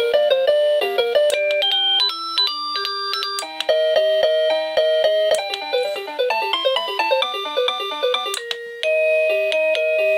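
A 1Byone Easy Chime plug-in wireless doorbell's chime unit playing one of its electronic melodies: a tune of short, evenly stepped synthesized notes, one after another.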